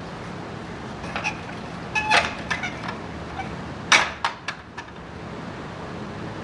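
Metal tools and parts clinking and knocking in a few short bursts, one of them ringing briefly like struck steel, over a steady low background hum.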